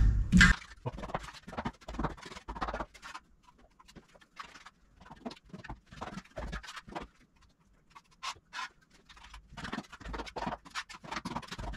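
Steel plastering trowels dabbing burnt-cement paste onto a wall panel: irregular soft taps and clicks with short pauses between, and a louder knock at the very start.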